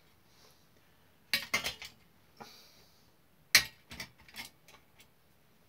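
Sheet-brass locomotive body clinking and knocking against the metal chassis as it is worked into place: a quick cluster of light clicks about a second and a half in, a sharp knock about three and a half seconds in, then a few lighter taps.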